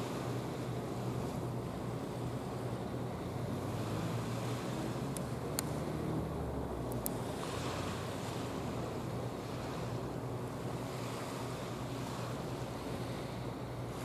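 Steady rush of wind and water with a low drone from a passing geared bulk carrier and its breaking bow wave. A few short clicks come near the middle.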